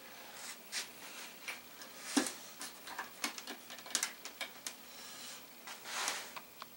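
Irregular light clicks and taps, a dozen or more scattered unevenly, the loudest about two, four and six seconds in: small hard parts being handled at the work bench.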